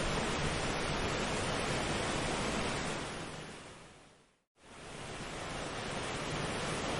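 Steady rushing noise of a nature-ambience recording, like water or wind. About halfway through it fades out over a second or so, goes silent for a moment, then fades back in, as at a loop or edit point in the track.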